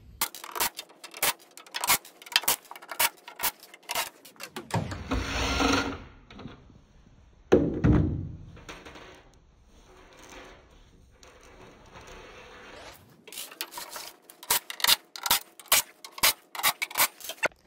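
Cordless impact driver with a T20 Torx bit running in brief bursts to back out the sheet-metal cover screws of a plasma cutter. Between the bursts come many sharp clicks and clatters of screws and tools being handled and set down.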